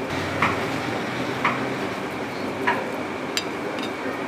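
A metal spoon scooping thick halwa out of an aluminium cooking pot onto a plate, giving about four short clicks and knocks against the pot and plate, over a steady background noise.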